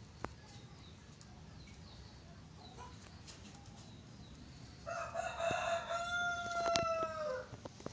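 A rooster crowing once: one long call that starts about five seconds in and drops a little in pitch at the end, with a few light clicks during it.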